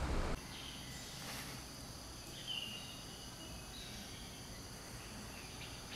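Faint outdoor morning ambience: a steady high-pitched insect chorus, with one short bird chirp about two and a half seconds in. A low bus-cabin hum cuts off right at the start.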